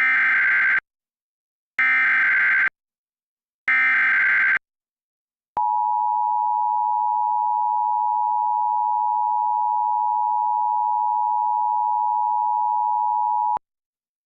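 Emergency Alert System tornado warning opening: three short screeching bursts of SAME header data, each under a second and about two seconds apart. Then the EAS two-tone attention signal (853 and 960 Hz together) holds steady for about eight seconds and cuts off sharply.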